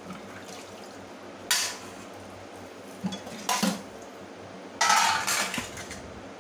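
Steel dishes and utensils clattering against a stainless steel sink as they are moved and lifted out, in separate bursts: one about a second and a half in, a few knocks around three and a half seconds in, and a longer scraping clatter about five seconds in.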